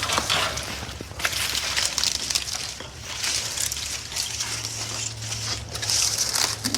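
Ceiling demolition debris: dry crunching, scraping and clattering as old wood furring strips and ceiling material are worked loose, with many short sharp cracks. A steady low hum runs underneath.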